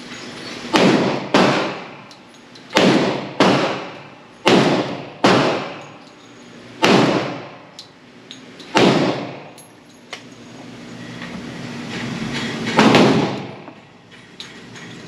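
Glock 40 pistol in 10mm Auto fired about nine times, each shot echoing in an indoor range. The first six shots come in pairs about two-thirds of a second apart, then single shots follow with longer gaps, the last after a pause of about four seconds.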